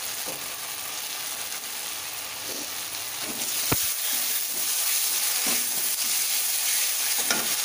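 Masala frying and sizzling in oil in a metal kadai, with a spatula scraping the pan now and then and one sharp clink a little past halfway. The masala is fully fried, the oil bubbling up at its surface.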